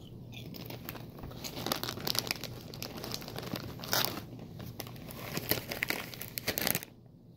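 Doritos chip bag crinkling as a hand rummages inside it for a chip, a dense irregular crackle that stops suddenly near the end.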